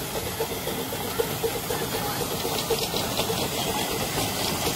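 A 7¼ in gauge miniature steam locomotive running past with its train of wagons. There is a steady steam hiss and a regular beat about three times a second.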